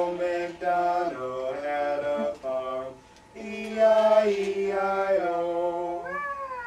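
A voice singing a slow tune in long held notes that step up and down, with a short break about three seconds in and a sliding note near the end.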